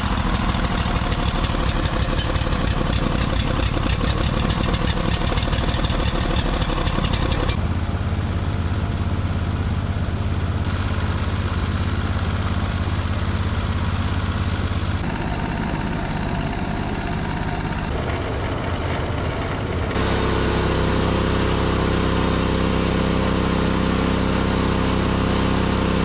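Gasoline engine of a portable sawmill running steadily at working speed. Its sound changes abruptly several times.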